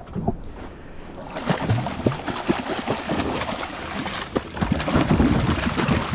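Hooked tuna thrashing and splashing at the surface right beside the boat, the splashing picking up about a second in and heaviest near the end.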